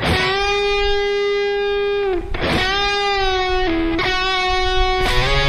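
Electric guitar playing a solo lead line with string bends on the third string around the 11th fret. One bent note is pushed up and held for about two seconds, a second held note follows, then a lower note and a few shorter notes near the end.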